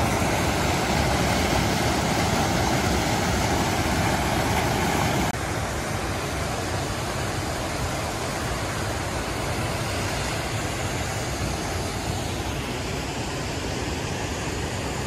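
Loud, steady rushing water of a mountain creek, an even roar with no rhythm, dropping suddenly to a somewhat lower level about five seconds in.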